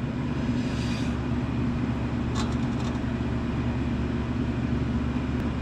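An engine idling steadily with an even low hum, and a few light clicks of parts being handled about two and a half seconds in.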